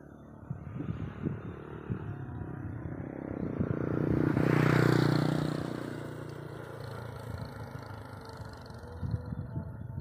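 A small motorcycle passes close by: its engine grows louder to a peak about five seconds in, then fades as it rides away. Low, irregular thumps run underneath throughout.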